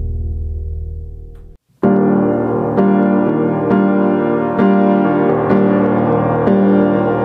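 Background music: a low, sustained ambient tone fades out to a moment of silence. Piano music then starts just under two seconds in, with notes struck about once a second.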